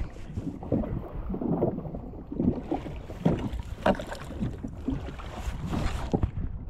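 Wind buffeting the microphone and water slapping against a jet ski's hull, with irregular knocks and clunks from handling the rod and reel while a small fish is wound in.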